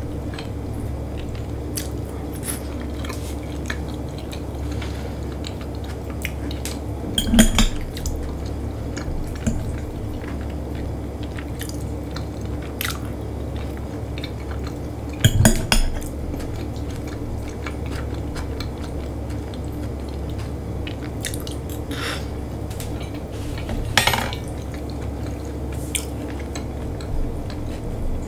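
Eating sounds: cutlery clinking on a plate and chewing, with three louder clatters about 7, 15 and 24 seconds in. A steady low hum runs underneath.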